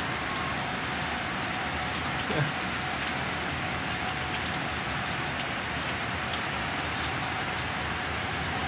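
Heavy downpour of rain falling steadily, an even hiss that neither builds nor eases.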